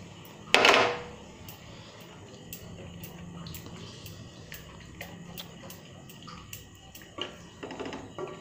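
Water poured from a cup into a steel kadai of frying masala and poppy-seed paste, loud for about half a second just after the start. The thinned gravy is then stirred with a wooden spatula, with scraping sounds near the end.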